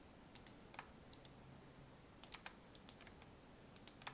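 Faint, irregular clicking of a computer keyboard and mouse being worked, about a dozen short clicks, some in quick pairs.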